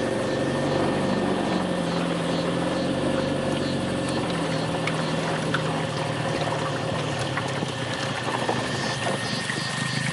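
A boat's outboard motor running steadily: a low engine hum with a thin steady whine above it, its pitch shifting slightly about four seconds in.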